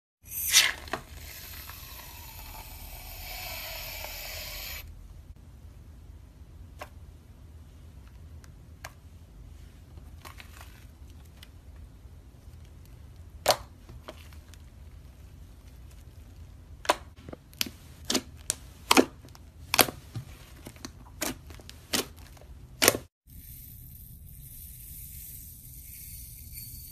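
Hands squeezing a thick white-and-blue slime, giving sharp popping clicks that come singly at first and then several in quick succession. Near the end, clear crystal beads are poured from a metal measuring cup onto clear slime with a light, high hiss. The opening few seconds hold a single loud click and a steady hiss.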